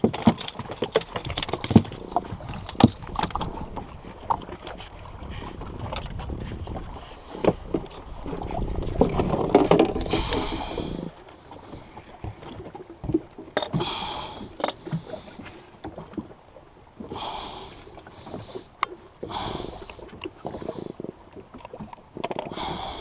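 Handling noises aboard a small fishing boat: frequent sharp clicks and knocks in the first half, a louder rushing noise about ten seconds in, then short scattered bursts of noise.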